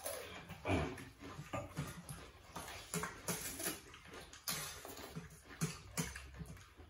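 People eating noodles at the table: an irregular run of short slurps, smacks and chewing noises, several a second.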